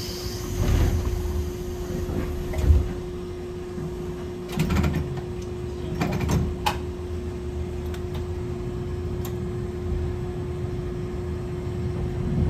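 Hankai Tramway type 701 streetcar running, heard from inside: a steady hum over low rumble, with a few sharp knocks about five and six seconds in.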